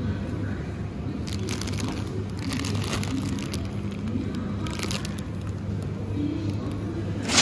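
A plastic bag of potatoes crinkles and rustles as it is picked up and handled, in several short bursts, over a steady low hum. A sharp click comes at the very end.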